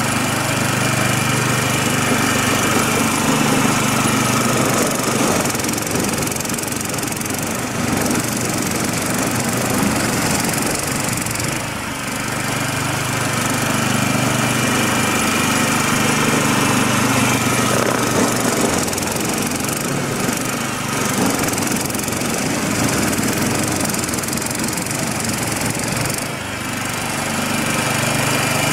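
Small engine of a MARKO tiller driving a belt-driven snow-thrower attachment, running steadily while clearing snow. Its note wavers for several seconds at a time, twice.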